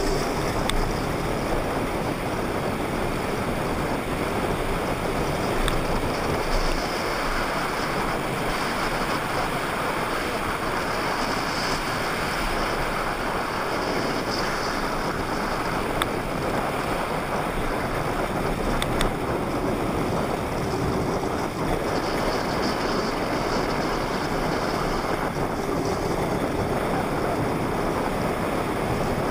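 Steady rush of wind on the microphone mixed with the rolling noise of a Hot Wheels XL pedal go-kart's plastic wheels on asphalt during a fast downhill coast, with a few faint clicks.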